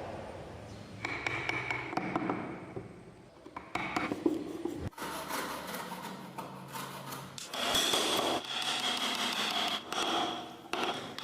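Hand tools scraping and rasping on wood in a string of short passes, with sudden changes between them, as a wooden model is shaped.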